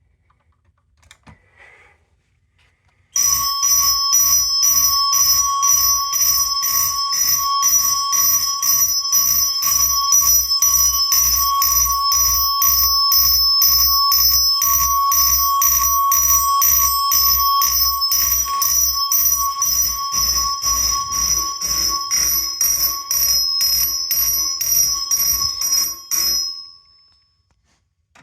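Simplex mechanical fire alarm chime ringing in alarm, struck over and over at an even rate of about two strokes a second with a ringing tone carrying between strokes. It starts about three seconds in and cuts off suddenly near the end, when the alarm is silenced.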